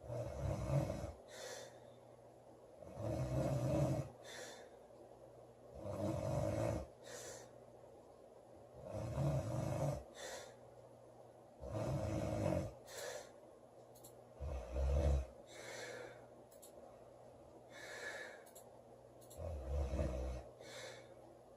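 A sleeping woman snoring loudly and regularly, about one snore every three seconds, each low rumbling snore followed by a short airy breath.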